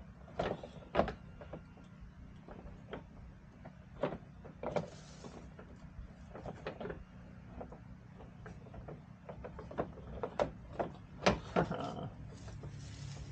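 Plastic fender flare and LED light housing being handled and fitted: irregular clicks, taps and knocks with brief rustles, over a low steady hum.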